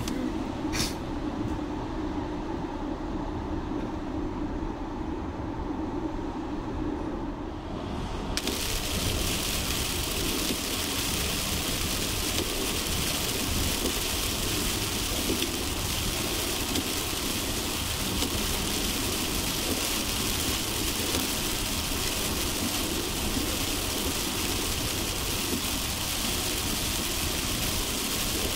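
Car driving in heavy rain: a steady low rumble of tyre and road noise. About a third of the way in, a loud, even hiss of rain switches on abruptly and continues steadily.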